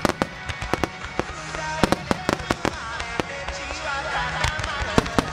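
Aerial fireworks shells bursting in a rapid barrage, with sharp bangs and cracks several times a second, over a song playing for the fireworks musical.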